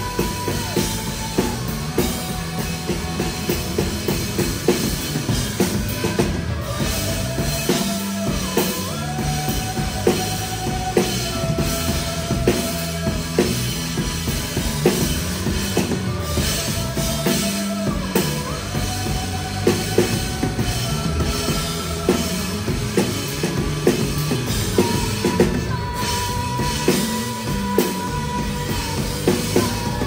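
Live rock band playing, with a drum kit keeping a steady beat under long held melody notes that slide from one pitch to the next.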